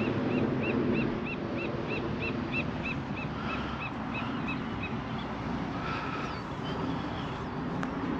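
A bird calling a rapid series of short, evenly spaced chirps, about three a second, fading out a few seconds in, over a steady hiss of surf and wind.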